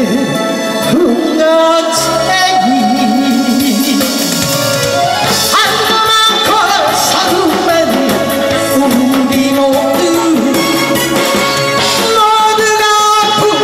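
Woman singing a Korean trot song into a microphone over backing music, her voice wavering with vibrato.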